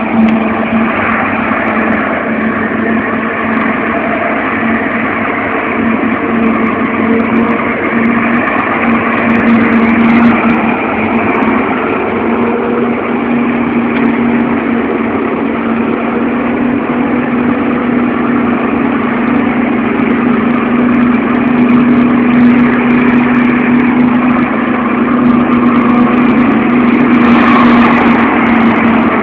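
Heavy farm diesels working steadily during maize chopping: an MB trac tractor hauling a silage trailer beside a running forage harvester. The result is a continuous loud drone with a strong, constant low hum, slightly louder in the second half.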